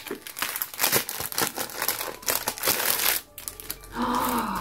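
Clear plastic packaging crinkling and crackling as it is pulled open by hand, a fast irregular run of crackles. Near the end a short voiced sound from the person opening it.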